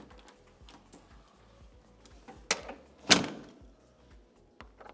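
A door clunking shut: two sharp knocks about half a second apart, the second one louder.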